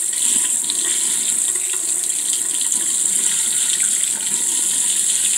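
Kitchen tap running in a steady spray into a stainless steel sink while a knife blade is rinsed under the stream.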